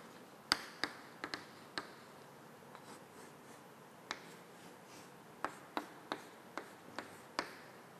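Chalk writing on a chalkboard: sharp taps and light scratches as letters and a ring are drawn. A few taps come in the first two seconds, then a quicker run of taps from about five and a half seconds in.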